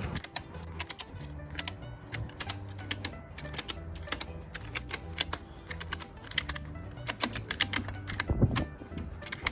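Background music with a low bass line stepping between notes, overlaid by sharp clicks in quick, irregular runs throughout.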